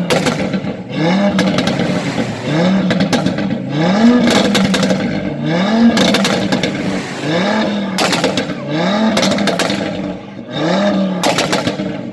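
Audi RS3 Sportback quattro's turbocharged five-cylinder engine revved in short blips, about one a second, each note rising and falling back, with sharp crackles from the exhaust after several of the blips.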